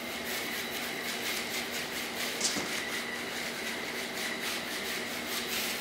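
Pair of cheap plastic gear motors on a two-wheeled self-balancing robot whirring and rattling steadily as they drive the wheels back and forth to hold it upright, with a steady high tone running through it.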